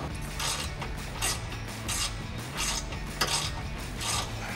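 Hand socket ratchet clicking in short strokes, about one stroke every two-thirds of a second, as exhaust bolts are backed out.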